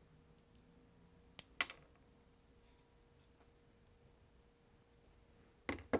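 A few short, sharp clicks from small pliers working at the wire ends of a sewing machine motor's field coil: two about a second and a half in and two more near the end, with near quiet in between.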